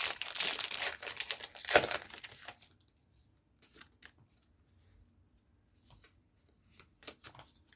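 Foil wrapper of a Pokémon TCG booster pack being torn open, with crinkling, for the first two and a half seconds; after that only faint rustles and small ticks.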